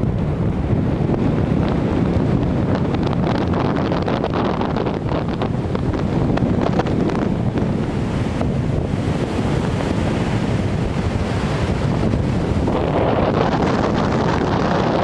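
Snowstorm wind blowing hard and buffeting the microphone, a steady rushing that swells into a stronger gust near the end.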